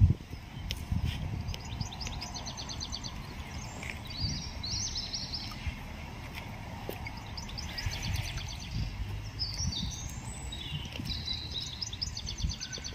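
Small songbirds singing short, fast trilled phrases again and again, over a steady low outdoor rumble.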